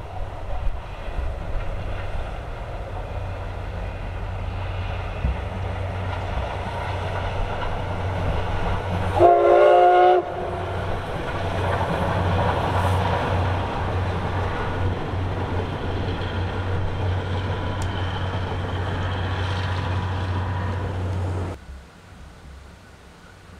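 Steam locomotive C61 20 running past with its train, the noise building over the first nine seconds. About nine seconds in, the locomotive's whistle gives one blast of about a second. The train noise cuts off abruptly near the end, leaving a faint hiss.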